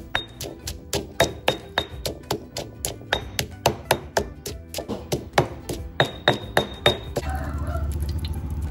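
Pestle pounding garlic, chillies, shallots and coriander root in a mortar into a stir-fry paste, in sharp strikes about three a second. A little after seven seconds the pounding stops and a steady low rumble takes over.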